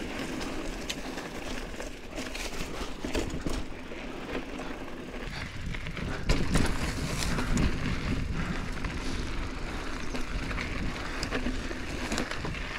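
Mountain bike being ridden over a dirt trail: tyre noise with a low rumble and many scattered clicks and rattles from the bike, a little louder from about halfway.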